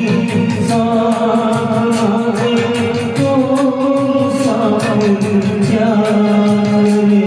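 A Hindi song: a singing voice holding long, gliding notes over instrumental backing, with a steady beat of light percussion.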